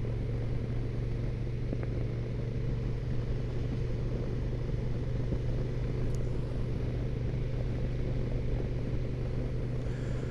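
Honda NT1100's parallel-twin engine running steadily at a cruise, a constant low drone with road and wind noise over it.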